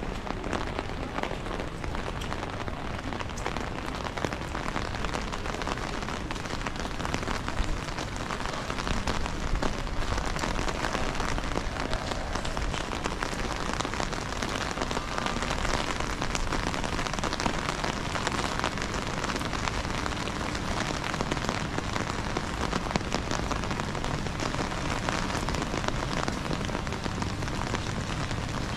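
Heavy rain falling steadily: a dense patter of many small drop strikes over an even wash of noise.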